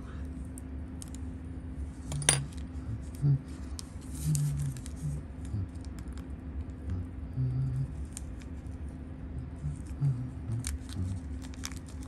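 A sealed plastic watch-parts packet being peeled and worked open by hand, crinkling and crackling with scattered small clicks, the sharpest about two seconds in, as a new Seiko watch crystal is freed from it.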